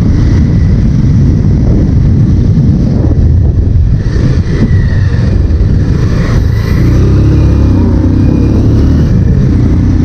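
Motorcycle being ridden, its engine running under heavy wind rumble on the action camera's microphone.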